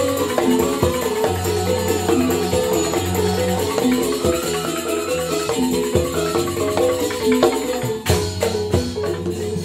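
Joged bumbung gamelan music: bamboo xylophones (grantang) play a busy interlocking melody over drum and percussion. There is a cluster of sharp percussive strikes about eight seconds in.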